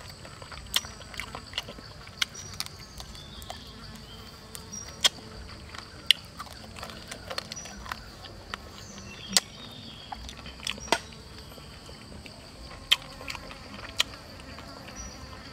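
Steady high-pitched drone of insects, with sharp clicks and crunches from chewing grilled chicken coming every second or so over it.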